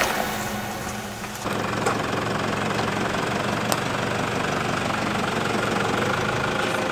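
Toyota Hilux dual-cab ute engine idling steadily. The idle comes in abruptly about a second and a half in, after a louder sound fades out.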